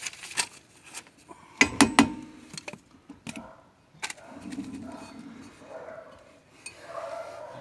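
Metal clanks and clicks of hand tools working on a car's rear brake drum and wheel hub: several sharp knocks, the loudest cluster about two seconds in.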